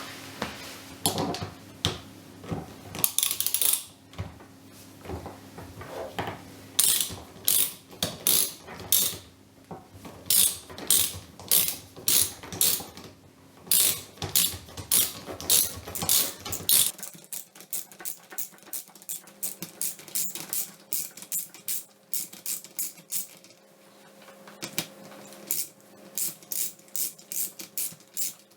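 Hand ratchet wrench clicking in repeated short strokes, about one to two a second, with a quicker run near the end.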